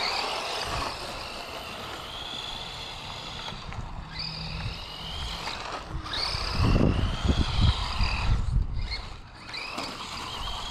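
Electric motor of a DEERC 9310 1/18-scale RC truck whining, its pitch rising and falling repeatedly with the throttle. Low bumps and rumble come in about two-thirds of the way through.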